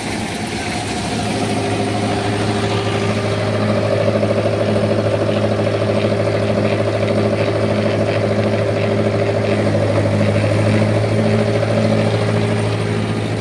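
Tractor diesel engine running steadily at working speed, driving a paddy thresher through its PTO shaft. The engine note grows louder over the first few seconds, then holds, with a slow regular throb about twice a second.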